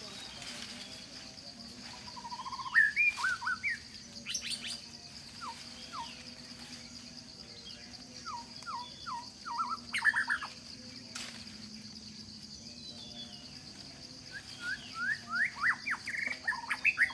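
Wild birds chirping in bursts of short, quick notes, three times over, above a steady high-pitched insect drone and a faint low hum.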